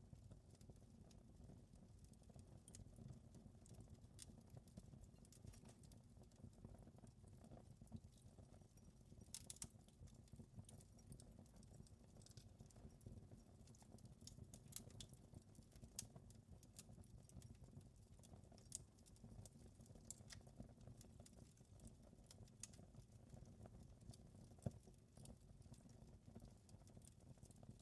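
Faint wood fire crackling in a fireplace: irregular sharp pops and snaps scattered over a low, steady background.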